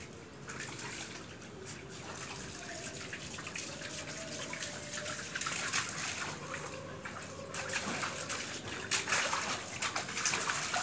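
Water splashing and trickling on a wet stone floor as a husky steps and jumps about in the puddle, with sharp splashes and patters that grow louder and busier over the last few seconds.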